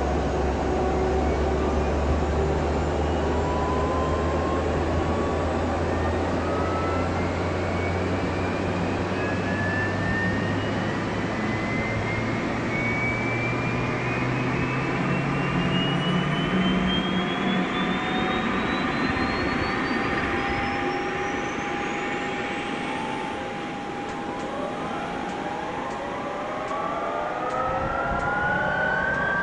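Fighter jet engines starting up: a turbine whine rises steadily in pitch over a low rumble. About 24 seconds in, several more whines start and rise together as further engines spool up.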